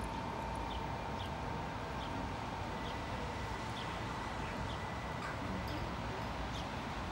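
Double-deck electric train pulling away, its steady electrical whine slowly fading over a constant running hiss. Short high bird chirps come about once a second.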